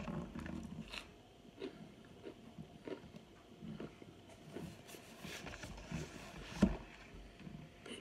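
Chewing and crunching of hard baked cornstarch chunks close to the microphone: scattered soft crackles, with one sharper crunch about two-thirds of the way through.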